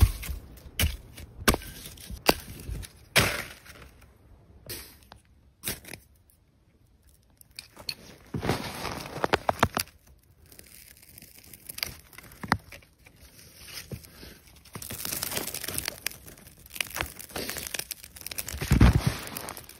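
Dry sticks snapping several times, then a knife scraping on birch bark a number of times as the bark catches. This is followed by a steady rustle and crackle of dry kindling being piled onto the burning bark, with a heavier thump near the end.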